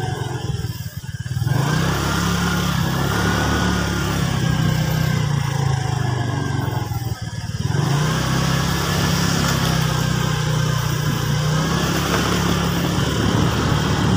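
Small motorcycle engine running steadily at riding speed. It eases off briefly about a second in and again around seven seconds in, then picks up again.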